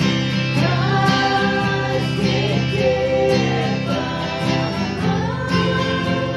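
Acoustic guitars strummed together, backing a singing voice that holds long notes.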